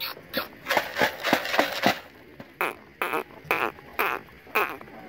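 A white domestic duck feeding on scattered grain, giving a quick run of short, soft quacks and bill clicks, about three a second, with a brief pause about two seconds in.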